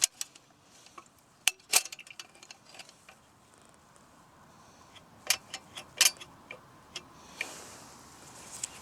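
Scattered sharp clicks and clinks of small hard objects being handled, loudest in two clusters, with a soft rustle near the end.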